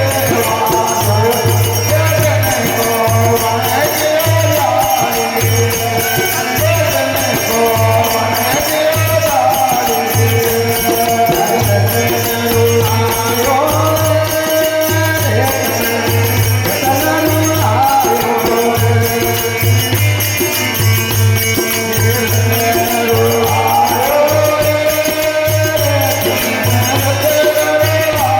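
Rajasthani folk devotional bhajan music: a melody of held notes moving in steps, over a pulsing low drum beat and continuous jingling percussion.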